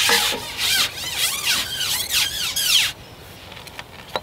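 Carbon pole being shipped out hand over hand: about seven rubbing strokes, each with a squeak that rises and falls in pitch, as the sections slide through the hands and over the roller. They stop about three seconds in, followed by one short click near the end.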